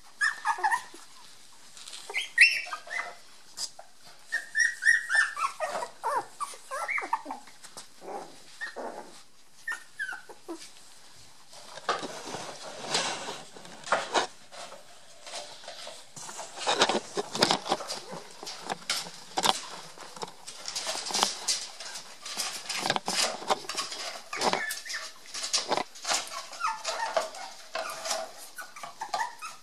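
Cocker spaniel puppies whining and yelping in high squeals that fall in pitch, mostly in the first ten seconds and again near the end. In between comes a busy run of clicks, scuffles and rustling.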